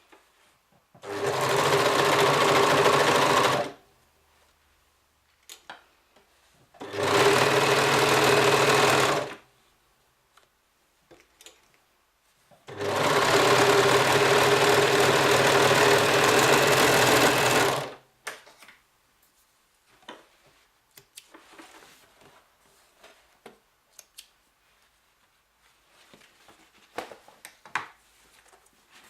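Serger (overlock machine) running in three steady bursts: about two and a half seconds, then about two seconds, then about five seconds. Faint clicks and fabric handling in between.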